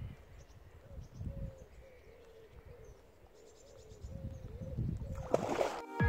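Quiet riverbank ambience: soft wind bumps on the microphone, faint bird chirps and a repeated short low call. Near the end comes a brief louder rush of water noise, a splash on the surface.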